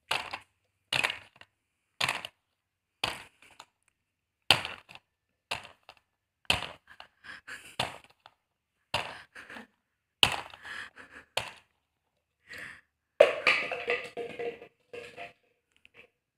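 Plastic toy car knocked and banged about by a toddler: a series of sharp knocks and clatters, roughly one a second, with a busier run of clattering near the end.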